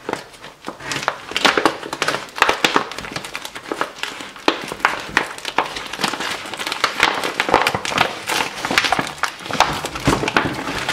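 Thick plastic MRE outer pouch being twisted, pulled and torn open by hand: a long run of irregular crinkling and crackling as the tough bag resists.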